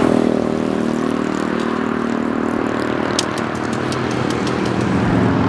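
A steady engine drone of several low tones holding an even level throughout. From about three seconds in, faint quick clicks are heard over it.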